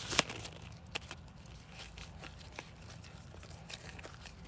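A sharp click just after the start and a knock about a second in, then faint scattered ticks and crackles over a low steady hum.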